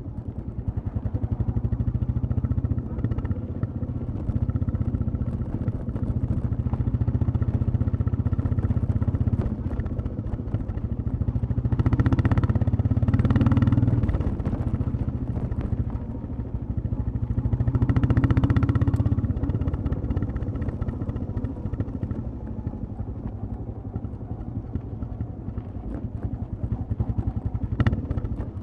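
Royal Enfield Classic 350 single-cylinder engine and exhaust thumping steadily under way, swelling louder twice, about twelve and eighteen seconds in, as the throttle is opened. A sharp knock comes near the end.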